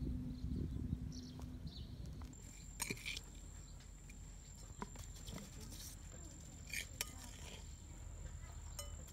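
A spoon clinks and scrapes against a plate and a pot, with a scatter of short sharp taps, as chopped chili paste is spooned onto raw chicken drumsticks. The first two seconds hold a low outdoor rumble with faint bird chirps.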